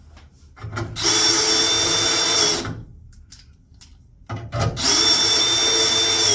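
DeWalt cordless drill run twice at full speed, each run about a second and a half, spinning up quickly and then holding a steady high whine as it works through a steel repair strap into a wooden floor joist.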